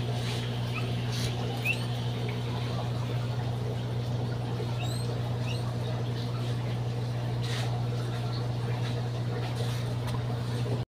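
Steady low electrical hum of an aquarium pump running beside the fish tank. Several short, rising high-pitched chirps are scattered through it, most of them in the first half.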